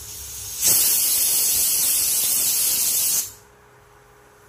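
Hot coconut oil sizzling loudly in a frying pan with dried red chillies, urad dal and mustard seeds frying in it for a tempering. The hiss starts suddenly and cuts off abruptly after about two and a half seconds.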